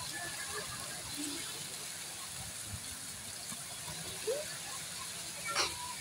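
Steady splashing hiss of water jets spraying into a pond, with faint scattered voices and a brief sharp sound about five and a half seconds in.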